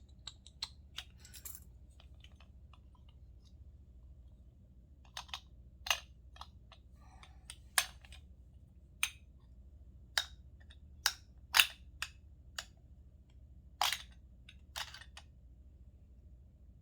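Irregular sharp metallic clicks and taps as the parts of a doorknob are handled and worked apart by hand, a few light ones at first, then louder, more spaced clicks through the middle and later part.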